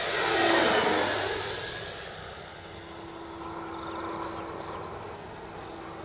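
Electric RC Corsair model's brushless motor and three-blade 14x10 propeller whining on a low, fast pass. It is loudest about half a second in, and the pitch drops as the plane goes by. It then settles to a fainter, steady tone as the plane climbs away.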